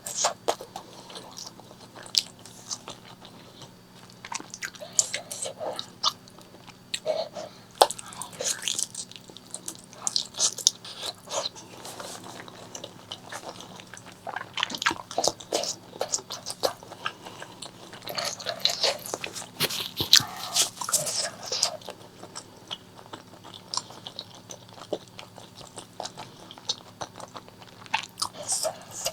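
Close-miked eating of pork leg curry with rice: irregular chewing and biting with sharp clicks and short crunchy bites, several bursts of them.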